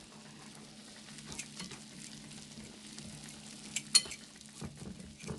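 A whisk stirring freshly combined pancake batter in a mixing bowl, with light scraping and a sharp clink about four seconds in, over a faint steady sizzle from the stovetop.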